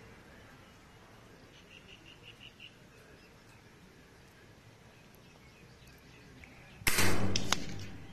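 .177 calibre air rifle fired once about seven seconds in: a sudden sharp crack that fades over about a second, with a second sharp click about half a second after it.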